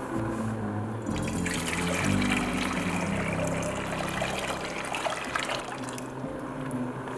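Water poured from an electric kettle into a saucepan, a steady splashing stream that starts about a second in and tails off near the end. Soft background music plays underneath.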